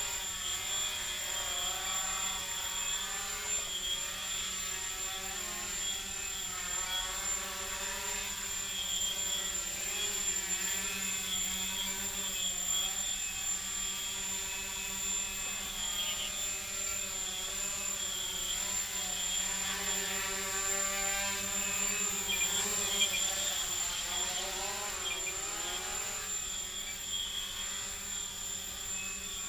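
Micro quadcopter's RC Tiger brushless motors and carbon fiber props buzzing in flight, the pitch wavering up and down as the throttle changes.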